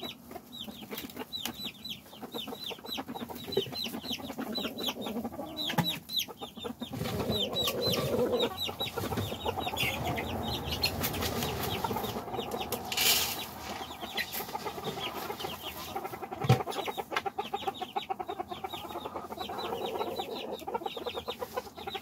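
Chickens clucking and chattering: long runs of quick, high, falling calls over lower clucks. A short rustling burst comes about thirteen seconds in, and a sharp knock a few seconds later.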